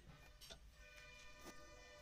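Near silence, with a few faint clicks and faint steady tones.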